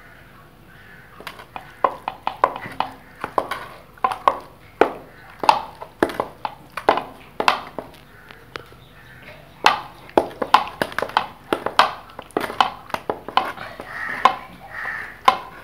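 Hands slapping and squishing spice marinade into whole raw chickens in a metal pan: an irregular run of sharp wet slaps and clicks, several a second, starting about a second in.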